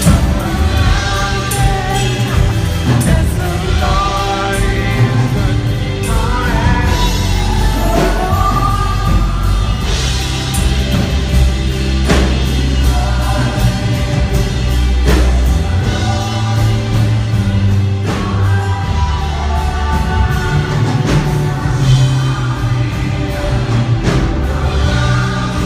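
A band playing a song: a singing voice with choir-like backing vocals over a steady bass and a regular drum beat.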